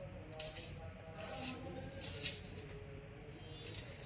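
A knife working through an onion on a chopping board: a few quiet, crisp, irregular cuts and papery rustles of onion skin.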